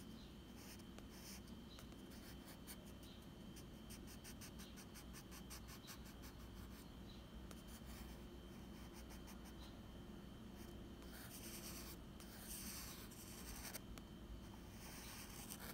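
Faint graphite pencil scratching on sketchbook paper: a run of quick short strokes, then a few longer, louder strokes near the end.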